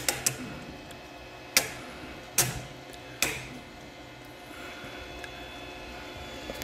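Sharp clicks and knocks of a 3D-printed plastic bracket being pushed and worked onto a 3D printer's extruder block: a couple of small clicks at the start, then three louder knocks under a second apart.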